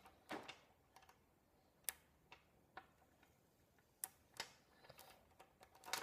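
Faint, irregular clicks of small magnetic balls snapping together as they are stacked into a ring. The clicks are single and sparse at first and come closer together near the end.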